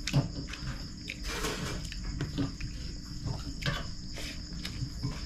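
Crickets chirping steadily in the background, with scattered small clicks and rustles of someone eating rice by hand from a plate.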